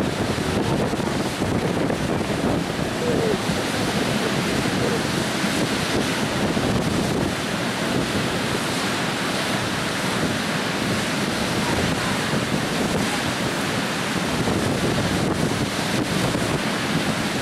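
Water pouring over a low river weir and churning in the white-water pool below, a steady rushing sound.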